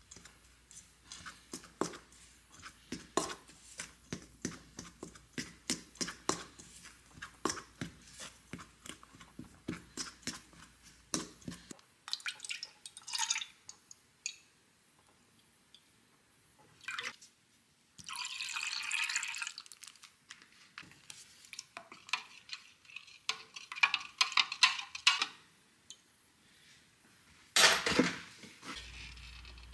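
A fork clinking and scraping against a stainless steel mixing bowl in quick repeated strokes as butter is worked into flour. After a break, buttermilk is poured into a plastic measuring cup, and there is one loud knock near the end.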